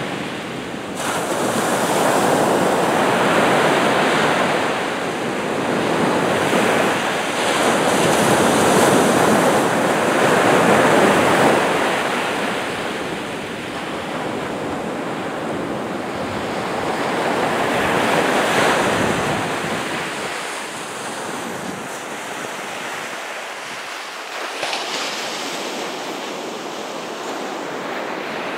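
Small sea waves breaking and washing up a beach, the surf swelling and fading with each wave every few seconds, softer in the last third.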